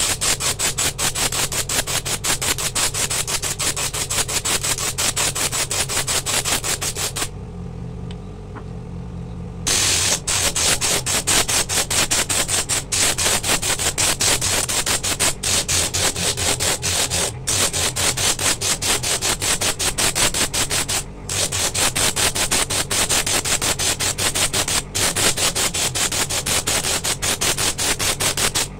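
Coconut shell pressed against a motor-driven sanding disc: a loud rasping grind that pulses rapidly, over the steady hum of the motor. About seven seconds in the shell is lifted off and for a few seconds only the motor hum remains, then the sanding resumes.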